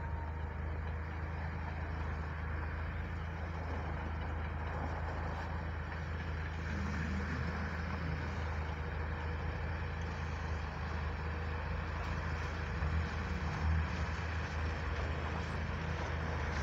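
Steady low drone of a vehicle engine with road noise, growing a little louder as a van approaches slowly.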